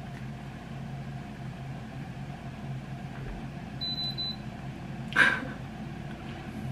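Quiet room with a steady low electrical hum, a short high beep about four seconds in, and a brief breathy sound about a second later.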